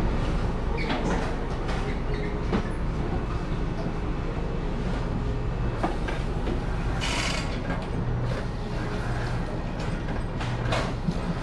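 Steady low machine hum of bakery kitchen equipment, with scattered knocks and clatter from trays and utensils on a steel bench, and a brief hiss about seven seconds in.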